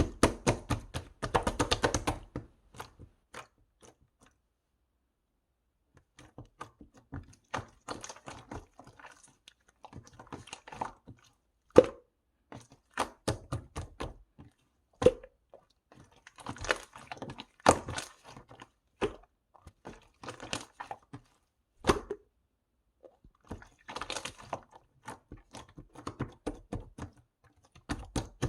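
Hand-played slime being squeezed, pressed and stretched, giving clusters of small wet clicks and air-bubble pops, with a silence of about two seconds some four seconds in.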